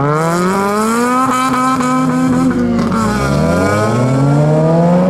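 Honda Civic four-cylinder engine accelerating hard away, revs climbing steadily, dropping at a gear change about three seconds in, then climbing again.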